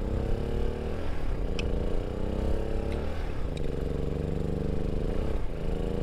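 A small engine running steadily in the background, its pitch wavering up and down every couple of seconds, with two faint clicks about a second and a half and three and a half seconds in.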